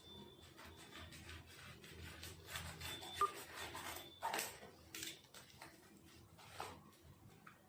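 Packaging being handled and opened by hand: irregular rubbing, scraping and rustling, with a sharp click about three seconds in.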